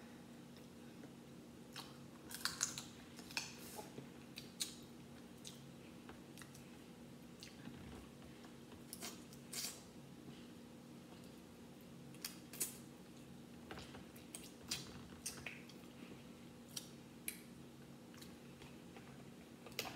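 Close-up eating sounds: scattered wet clicks and smacks of chewing seafood, with fingers picking at the pieces, over a faint steady hum.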